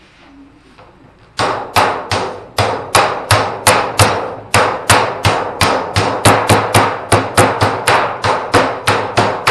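Hammer blows on a sheet-metal panel, beating a folded edge flat. The blows are steady and even, about three a second, each a sharp metallic strike with a short ring, and they start a little over a second in.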